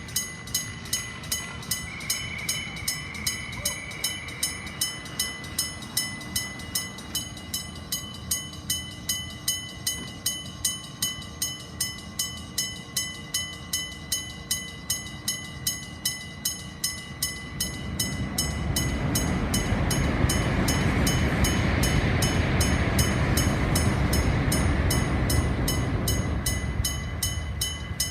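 Electric-bell level crossing warning bell, its hammer striking a gong about twice a second with a steady ringing tone. From about 18 seconds in a Gakunan Railway train passes over the crossing, its rumble swelling over the bell for about nine seconds, then fading.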